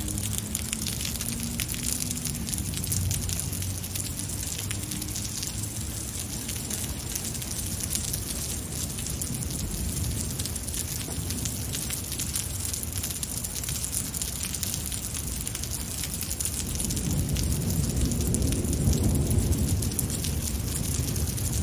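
Heavy thunderstorm rain pouring steadily onto pavement and a wet street. A low rumble of thunder swells up about seventeen seconds in and dies away near the end.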